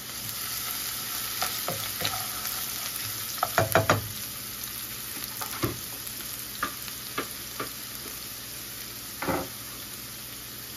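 Chopped onion sizzling in hot oil in a skillet, stirred with a spatula, with a few sharp knocks: a cluster of them about three and a half seconds in, then single ones.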